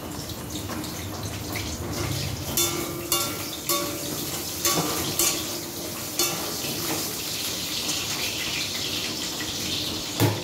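Chicken frying in hot oil with masala in a karahi, sizzling steadily, while a metal ladle clinks and scrapes against the pan several times as it is stirred: the kosha stage, browning the meat in the spices.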